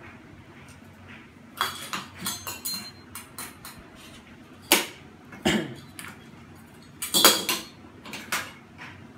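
Metal parts of a Hunter Pacific Aurora ceiling fan clinking and clanking as they are handled and fitted together during assembly, in irregular clusters of knocks with a few brief metallic rings; the loudest knocks come about halfway through and again later.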